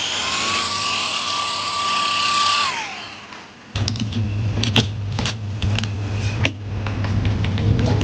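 A small electric tool runs with a steady whine and hiss, then winds down and stops about three seconds in. After a brief lull comes a steady low hum with a run of small clicks and taps, as parts and tools are handled on the bench.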